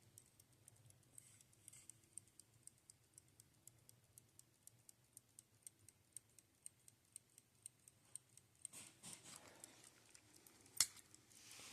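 Westclox conductor's pocket watch ticking faintly and evenly, about five ticks a second. Near the end comes a brief rustle and one louder sharp click.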